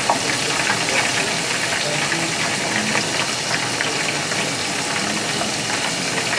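Seasoned chicken wings deep-frying in hot canola oil: a steady, dense sizzle and crackle of popping grease.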